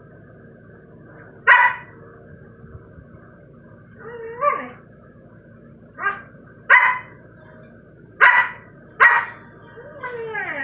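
Siberian husky barking: about five short, sharp barks, with a wavering whine about four seconds in and a falling whine near the end.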